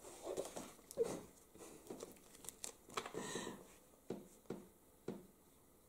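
Sheets of paper rustling and crinkling as they are handled and lifted, in scattered short soft rustles and taps.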